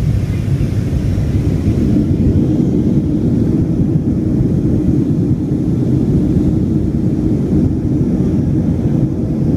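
Steady low roar of jet engines and rushing air heard inside the cabin of a Southwest Airlines Boeing 737 climbing out after takeoff.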